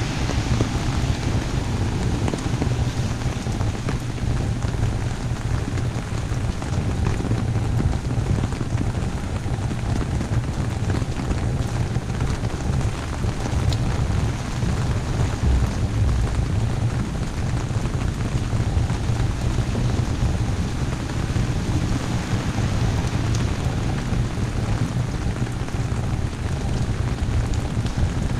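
Heavy rain falling on an umbrella held overhead: a steady, dense patter of drops with a low rumble underneath.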